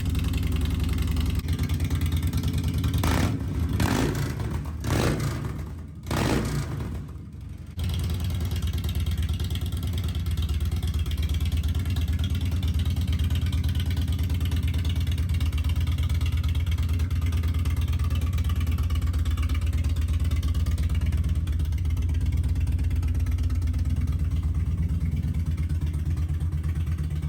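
Harley-Davidson Dyna Street Bob V-twin breathing through a newly fitted Two Brothers Racing exhaust. It is revved in a few quick throttle blips about three to six seconds in, then settles into a steady idle.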